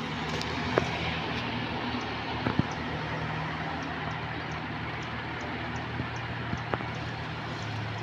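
Renault Duster AWD's diesel engine running steadily at low speed as the car moves off slowly, a low even hum with a few light clicks.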